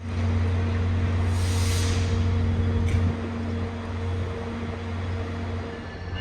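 Passenger train at a station platform: a diesel locomotive running with a steady low hum and engine tones, and a brief hiss of air about a second and a half in.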